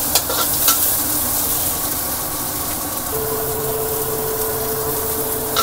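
Shallots, garlic and green chilies sizzling in hot oil in a wok, with a few spatula clicks against the pan in the first second. A steady tone joins the sizzle about three seconds in.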